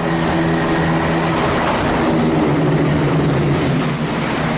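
Class 168 Turbostar diesel multiple unit passing through the station, its diesel engines droning over a steady rush of wheel and air noise. The engine note drops in pitch about halfway through.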